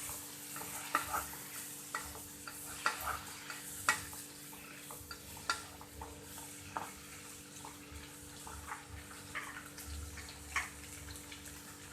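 Onions and tomatoes frying in butter in a kadai, quietly sizzling, while a spoon stirs them with scattered scrapes and taps against the pan.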